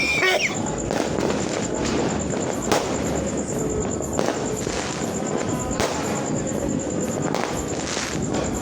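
New Year's Eve fireworks and firecrackers going off continuously: a dense crackle with sharper bangs every second or two.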